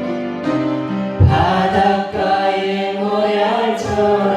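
A Korean worship song is sung with instrumental accompaniment. Steady held chords sound throughout, and voices come in on the next line about a second in, with low beats under them.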